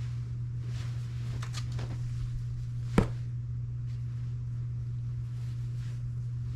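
Steady low hum with faint rustling of fabric as a dress is handled, and one sharp click about three seconds in.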